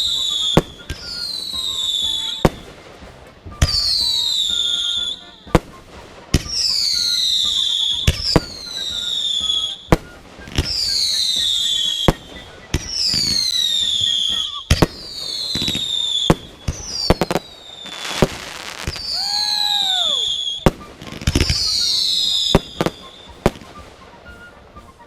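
Fireworks going off in quick succession: a string of shrill whistles, each falling in pitch over about a second and cut off by a sharp bang, roughly one every two seconds, with scattered extra pops between.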